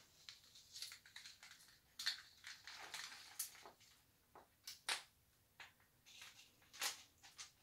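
Faint, irregular clicks and soft rustling of jewelry and its packaging being handled, with a few sharper ticks about 2, 3½, 5 and 7 seconds in.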